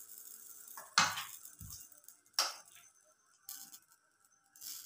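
A few light clinks and knocks of kitchen utensils being handled, the loudest about a second in.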